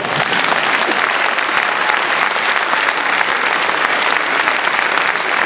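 A crowd applauding: dense, even clapping that holds steady.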